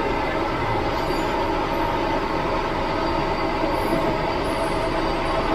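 Steady roar of a high-flame gas wok burner with the sizzle of chicken offal being stir-fried in the wok.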